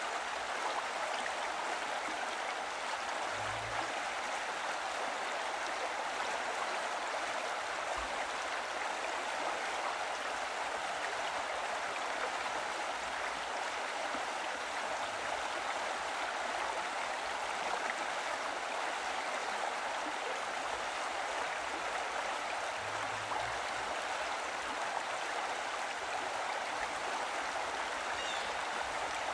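Steady rushing of running water, like a stream, without a break.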